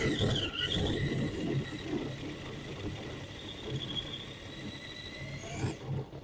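Electric motor and gear drivetrain of a Traxxas TRX-4 K5 Blazer RC car whining as it drives, the pitch wavering with the throttle over a low rumble and rattle from the chassis. It is heard from a microphone mounted inside the car. The whine cuts out briefly near the end.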